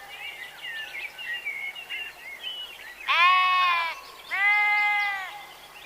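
Sheep bleating twice, each bleat about a second long, the first about three seconds in and the second soon after. Faint quick high chirps run before them.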